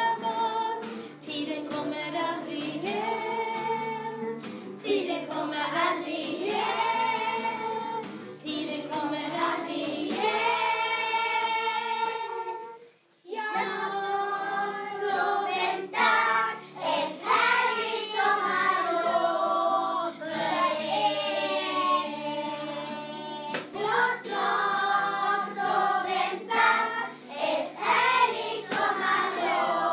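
A class of young schoolchildren singing together in Swedish as a choir, with a short break about 13 seconds in.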